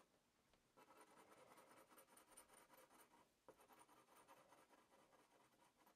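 Very faint graphite pencil strokes on drawing paper: light, rapid shading and blending.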